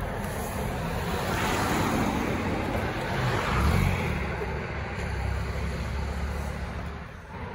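Cars driving past on a road: tyre and engine noise that swells as vehicles go by, loudest about four seconds in, and drops off near the end.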